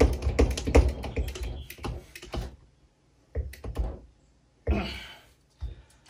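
Hand crimping tool clicking and clattering in quick succession as it is worked onto a ground cable lug, followed by a few single knocks and a short rustle.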